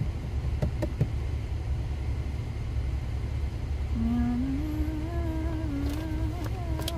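Steady low road and engine rumble of a moving car heard inside the cabin. From about four seconds in, a voice hums a slow, wavering tune over it.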